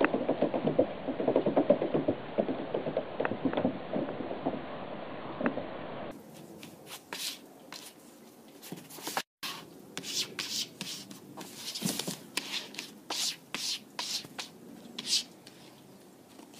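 Scrabbling and scraping of cats' claws and paws on plastic playground slides: dense rustling scrabbles at first, then after a sudden change, sparser crisp scrapes and crunches as a cat paws through snow on the slide.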